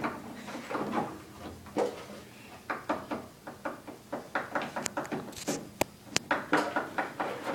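Puppets and props being moved about by hand: scattered light taps, clicks and knocks, with a few sharp clicks near the end.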